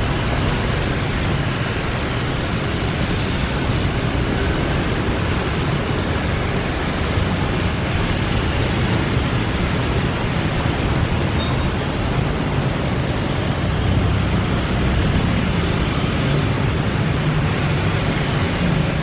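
Airbus A321 jet engines at takeoff thrust as the airliner lifts off and climbs away: a steady rushing noise with a low rumble that swells slightly after the middle.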